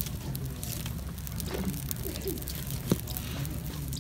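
Wood fire crackling in a clay stove under an iron griddle, with scattered sharp pops and one louder snap about three seconds in.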